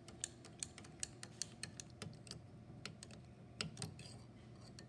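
A metal spoon clicking against a small glass as it stirs a thick paste of yeast and water: light, irregular clicks, a few a second.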